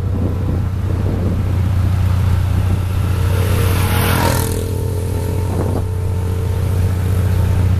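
Road traffic: a steady low hum under a vehicle passing close by, its tyre and engine noise swelling to a peak about four seconds in and then fading.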